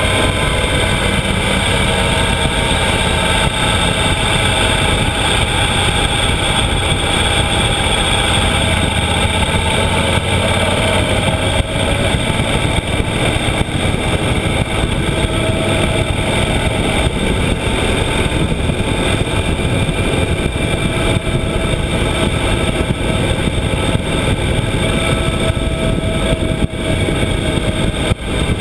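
Yamaha XT1200Z Super Ténéré's parallel-twin engine running steadily on the move, its pitch drifting gently up and down, under heavy wind rush on the camera microphone.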